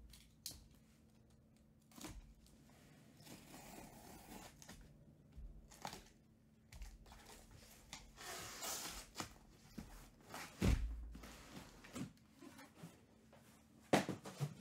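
Cardboard handling: a taped cardboard shipping case is opened and sealed card boxes are slid out of it and set down. There is rustling and scraping, a longer rasp about eight seconds in, and a few sharp knocks, the loudest near the end.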